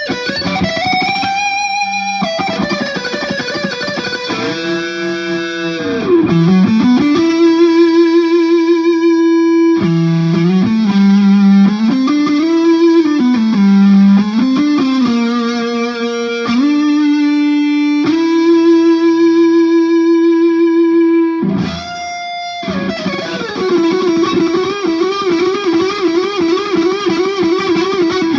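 Knaggs Kenai electric guitar through a Marshall JCM 2000 amplifier playing a slow single-note lead line. It has long sustained notes, pitch bends that rise and fall, and a wide, fast vibrato on the last held note.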